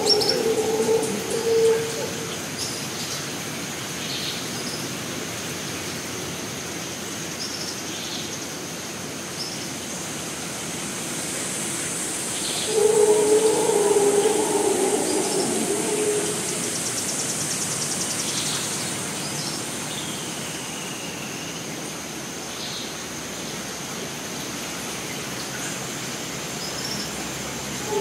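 Rainforest ambience: insects chirring steadily, with a higher buzz swelling up in the middle, and scattered short bird chirps plus one falling whistled call. A low, drawn-out call comes at the start and again about halfway through.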